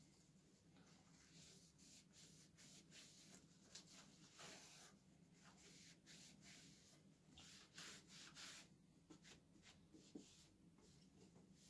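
Faint, irregular swishes of a polyester cloth rubbing over the stainless steel body of a coffee roaster as it is wiped down.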